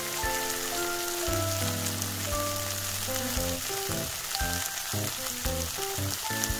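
Julienned potato strips frying in a pan, a steady sizzle with fine crackles, under background music.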